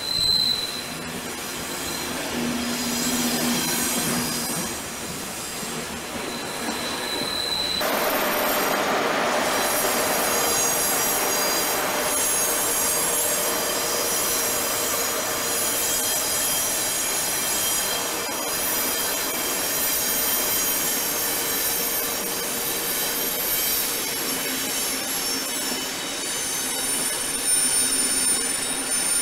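Passenger train coaches rolling through a curve, their steel wheels squealing against the rails in steady high-pitched tones over the rumble of the train. About eight seconds in the sound turns abruptly louder and fuller, with a different set of squeal tones.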